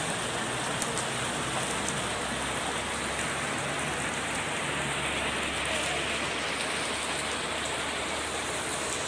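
Heavy rain falling steadily on umbrellas, plastic sheeting and standing floodwater, with scattered sharp drop ticks.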